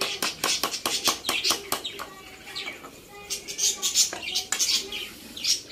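Small birds chirping: a quick run of short, sharp high chirps in the first two seconds, then louder high chirps a few seconds in.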